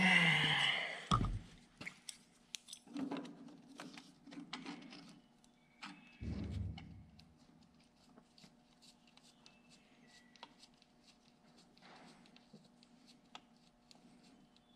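Hand tools working the ignition coil's mounting bolt and nut on a Ford 8N tractor: a brief louder scrape at the start, then a run of small irregular metallic clicks, with a dull thump about six seconds in.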